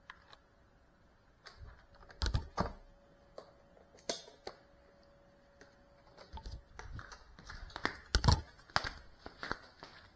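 Irregular clicks and knocks of a small drone-mounted camera being handled and set down, the loudest about two seconds in and about eight seconds in, followed by quicker light steps on a hard floor. No propeller whine: the motors are not running.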